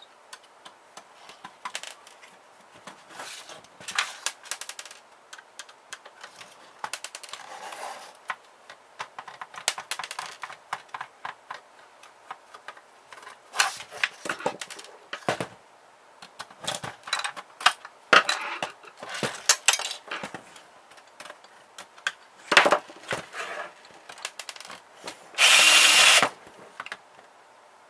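Small printer being taken apart by hand: scattered clicks, taps and clatter of plastic and metal parts. A power drill runs in one burst of about a second near the end.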